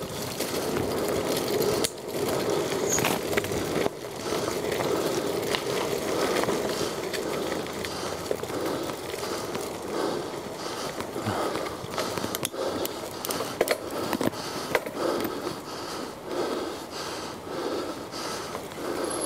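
Mountain bike ridden off-road along a dirt woodland trail: steady tyre noise on the dirt with frequent knocks and rattles from the bike over bumps, and the rider breathing hard, the breaths swelling in and out in the second half.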